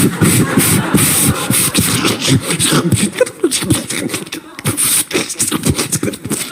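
A man making mouth sound effects into a microphone: a rapid run of hisses, clicks and short vocal noises, beatbox-like, imitating the sounds of someone taking a shower.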